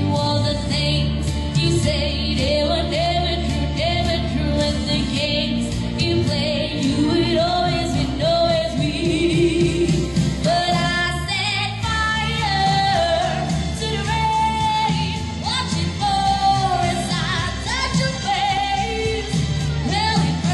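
A woman singing a pop song into a microphone, amplified through a PA speaker, over instrumental accompaniment.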